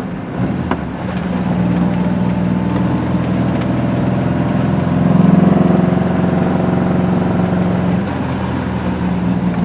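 Modified air-cooled VW Beetle flat-four engine (2275 cc, Weber IDF carburettors, merge collector exhaust) running under way, heard from inside the cabin. It grows louder about five seconds in, then eases back near the end.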